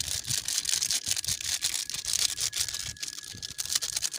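Small plastic spice sachet crinkling and tearing in the hands, a dense rapid crackle of plastic as the masala powder is shaken out of it.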